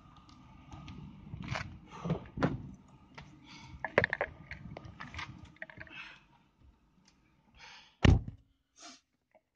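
Handling noise and scattered knocks as a phone camera is carried against clothing while climbing into a car, then one loud, short thump about eight seconds in as the car door shuts.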